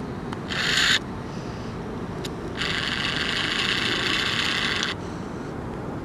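Two bursts of dry, hissy scraping noise, a short one about half a second in and a longer one of about two seconds in the middle, over a steady low rumble.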